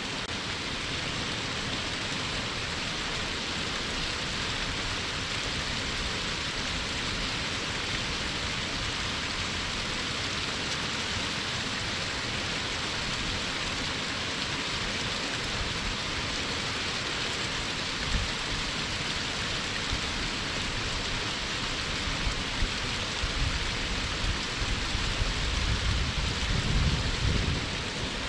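Waterfall heard from its base: a steady, even rush of falling and splashing water. Low rumbling bumps come in during the last few seconds.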